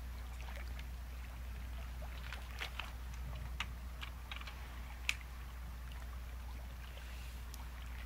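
Sea waves with a steady low rumble, and scattered crackles and clicks of water between about two and five seconds in, the sharpest about five seconds in.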